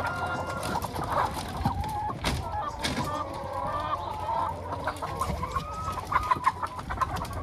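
A crate-load of young hens clucking and calling over one another, with a few sharp knocks in the first few seconds.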